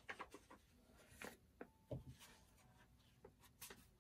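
Faint handling noises of paper and fabric pieces on a craft table: scattered light rustles and taps, with a soft thump about two seconds in.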